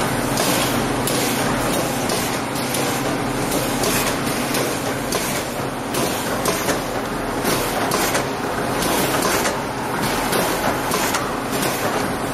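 Skala Maskon VX-8 automatic fish vaccination machine running, its linear-motor-driven stations clacking rapidly and irregularly over a steady machine hum.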